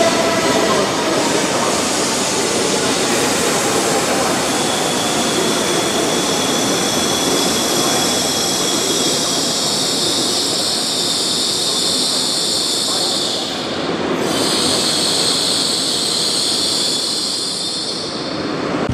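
Nishi Kyushu Shinkansen Kamome (N700S) train moving slowly along the platform: a steady rumble of wheels on rail, with a high electric whine that comes in a few seconds in and grows stronger in the second half.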